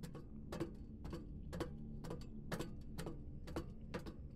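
Soundtrack of a rendered sci-fi corridor animation: a steady low drone under sharp ticks, about two a second.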